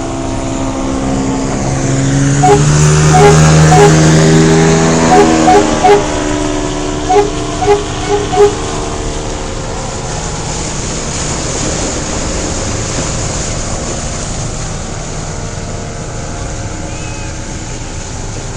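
Off-road vehicle engine running hard, its note swelling to its loudest about three to five seconds in, then settling into a steadier, quieter drone. A string of short, sharp pitched blips sounds over it between about two and eight seconds in.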